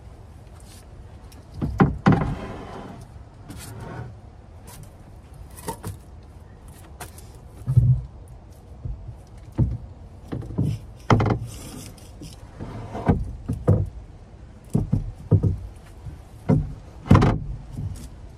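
Handling noise of a bed platform being flipped back over and pressed down onto foam board insulation: irregular thumps and knocks with a couple of longer scraping slides. The platform rocks and knocks against metal clamps under it, which the foam board was not cut to clear.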